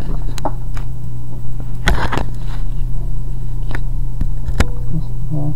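Handling noise: a few scattered clicks and taps and a short scrape about two seconds in, over a steady low electrical hum.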